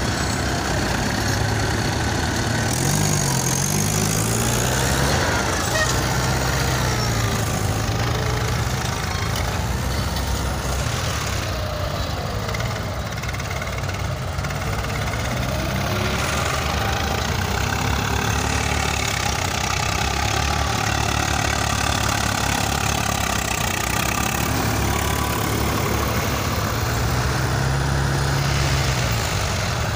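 Several farm tractors' diesel engines running hard under heavy load as they drag soil-scraper levellers through loose dirt, the engine pitch wavering up and down.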